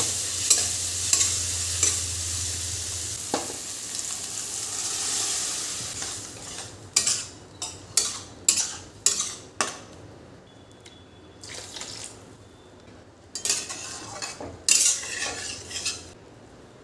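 Food sizzling in a hot pan while it is stirred, the spoon clicking against the pan; the sizzle fades over the first several seconds. Then comes a run of about six short, sharp stirring strokes, and a few more near the end.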